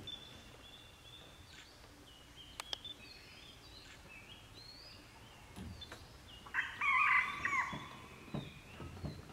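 Forest birdsong: short, high whistled calls from several birds throughout, with a louder two-pitched call about seven seconds in. A few brief low rustles come in the second half.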